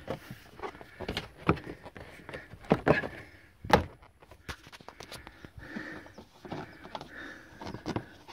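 Several sharp knocks and clicks of a car's plastic front bumper corner and wheel-arch trim being handled and pushed into place, the loudest a little under four seconds in.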